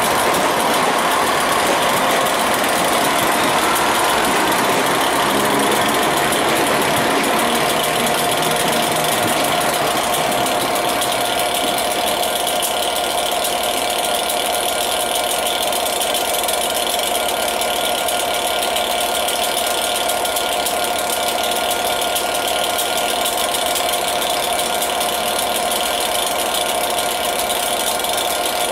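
Class 67 diesel locomotive idling at a standstill, its EMD two-stroke V12 running steadily with a constant whine. For the first ten seconds or so another train's engine is heard as well, fading away as it pulls out.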